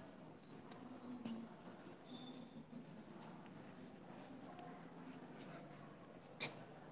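Faint chalk writing on a blackboard: a run of short scratches and taps as a word is written, then one sharper click near the end.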